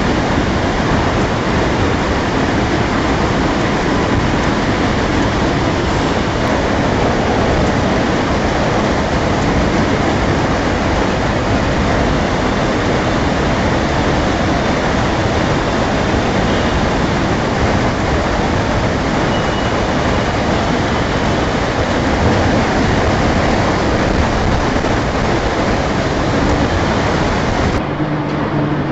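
Heavy rain pouring steadily, heard as a dense, even hiss; it becomes slightly quieter near the end.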